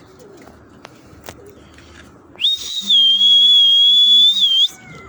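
A loud, shrill whistle: one steady high note held for about two seconds, starting about halfway in, with a short wobble as it ends. It is a pigeon keeper's whistle to his flying flock.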